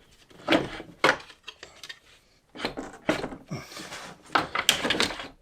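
Hard knocking and clattering in several short bunches as the radiator cooling-fan assembly is lifted and worked out of the car's engine bay, parts knocking against each other.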